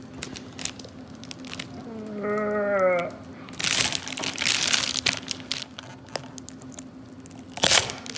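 Steel hemostats working an expanded copper slug loose inside a block of clear synthetic ballistics gel: crackling, crunching gel with a louder tearing stretch in the middle. A brief strained, hummed grunt of effort comes about two seconds in.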